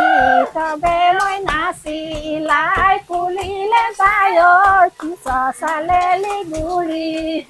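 Women's voices singing a traditional Deori song, with held, wavering notes. Hands clap along in a steady beat of about two claps a second.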